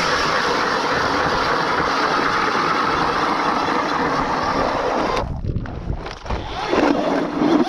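Battery-powered electric ice auger drilling through soft lake ice, ripping through it easily, then cutting off suddenly about five seconds in. A shorter burst of noise follows near the end.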